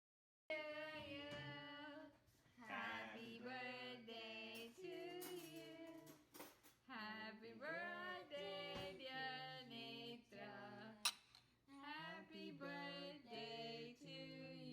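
A woman singing a melody quietly, with held and gliding notes, starting after a brief moment of total silence. A single sharp click comes about eleven seconds in.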